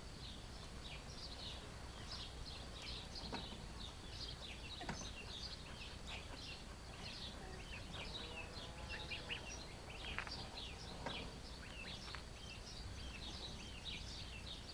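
Many small birds chirping busily and without a break, with a faint drawn-out wail about eight seconds in.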